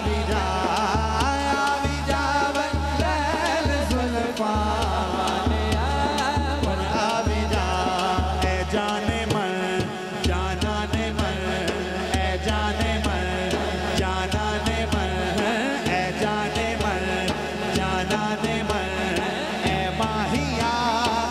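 Naat sung by a lead singer with chorus through a PA, over a steady beat on a large dhol drum. The drumming stops briefly about halfway through.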